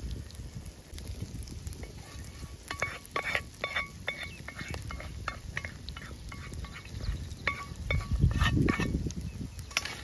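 Egg-and-herb kookoo mixture frying in oil in a pan over an open wood fire, under a low rumble that swells near the end. From about three seconds in, a run of short, repeated high chirps.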